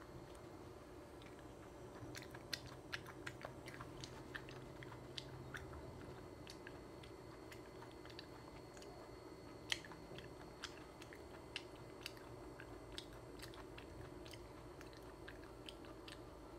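A person chewing raw coconut worms (palm weevil larvae), with soft wet mouth sounds and scattered small clicks. One louder click comes about ten seconds in.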